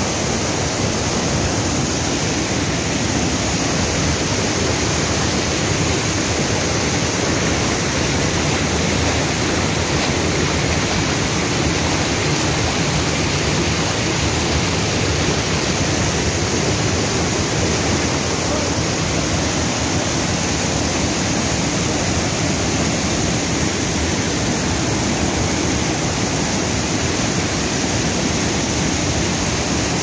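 Loud, steady rush of river water cascading over boulders in a small waterfall, heard at close range.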